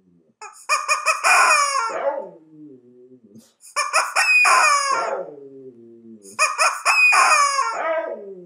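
Rubber screaming-chicken toy squeezed three times, each a long, shrill squawk falling in pitch. After each squawk a husky answers with a lower howl that slides down in pitch.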